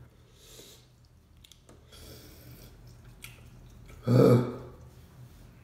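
A man chewing very spicy instant noodles, with faint mouth noises, and one short loud groan about four seconds in.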